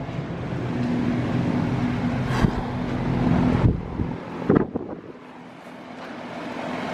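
Steady hum of a running air-conditioning system's indoor air handler, with a couple of knocks, then a quieter steady hum for the last couple of seconds.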